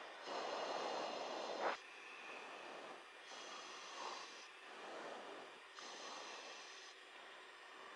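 Hiss and breath noise on an open headset microphone of an aircraft intercom, coming in soft surges; the loudest lasts about a second and a half near the start and cuts off abruptly.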